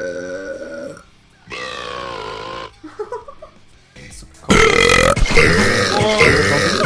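Loud belches from young women, one after another: a short one at the start, a longer one about a second and a half in, and a long, loud, drawn-out one from about four and a half seconds in.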